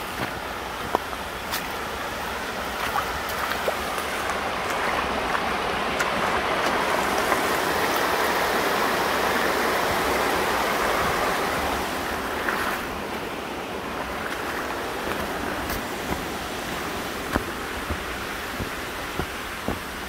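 Creek water rushing over a small rock-ledge cascade: a steady rushing hiss that swells to its loudest about halfway through and then fades away, with a few short sharp clicks scattered through it.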